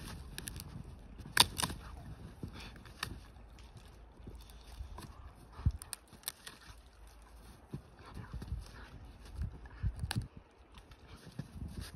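A dog chewing and gnawing at a long, twiggy tree branch in snow: irregular sharp cracks and knocks of wood, the loudest about a second and a half in.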